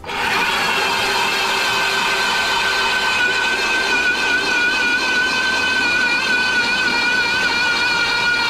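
Electric ice auger drilling a hole through lake ice: the motor starts suddenly and runs with a steady high whine as the bit bores down.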